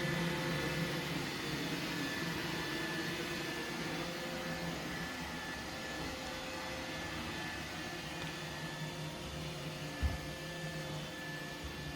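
iRobot Roomba 960 robot vacuum running steadily after resuming its cleaning cycle: a constant motor hum with a faint high tone through it. A single low thump comes about ten seconds in.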